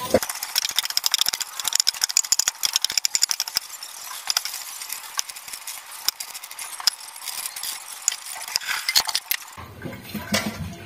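Hands squeezing wet grated coconut over a stainless steel bowl to press out the first, thick coconut milk (kakang gata): a dense run of small wet clicks and crackles, thickest in the first few seconds.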